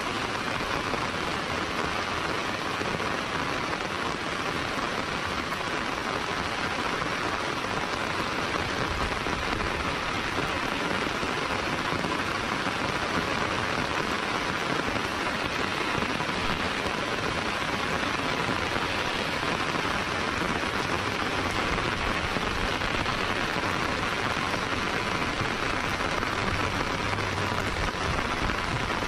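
Heavy rain falling steadily on a paved road and roadside vegetation: a constant, even hiss.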